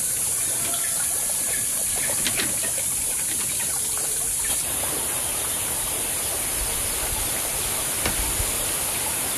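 A few light knocks and rustles of bamboo poles being handled and tied on a cucumber trellis, over a steady, high-pitched hiss of background ambience.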